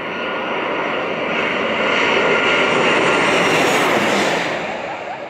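Boeing 737 jet airliner on final approach, gear down, passing low overhead. Its twin turbofan engines grow louder to a peak about two to four seconds in, then a high whine drops in pitch as it passes and the sound fades away.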